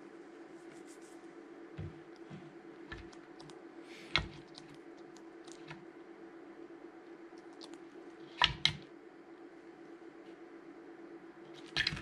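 Hard knocks and clacks of a wooden food-puzzle toy's pieces as a bird of prey's beak and feet work at it: a few light taps, a sharper knock about four seconds in, a quick double knock past the middle, and more clatter at the very end. A steady low hum runs underneath.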